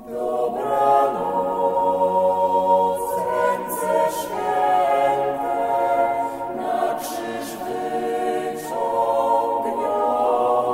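Vocal ensemble singing a choral song in slow, held chords, without instruments; a new phrase begins right at the start and the chord changes every couple of seconds, with the hiss of sung consonants here and there.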